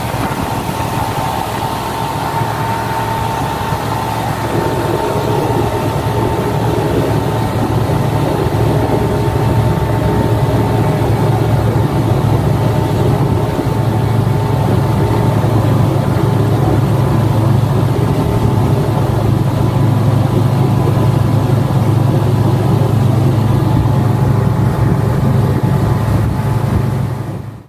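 Motorboat engine running steadily at speed while towing an inflatable tube, over the rushing of the boat's churning wake. It cuts off suddenly near the end.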